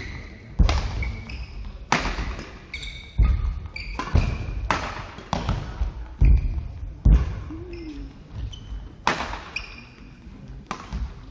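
Badminton rally in a sports hall: sharp racket strikes on the shuttlecock, about ten of them roughly a second apart, with footfalls thudding and shoes squeaking briefly on the court floor.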